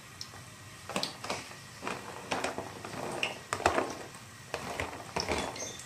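Irregular clinks and knocks of a utensil and dish against a pot of boiling broth as vegetables are tipped in and stirred, about nine short hits in all.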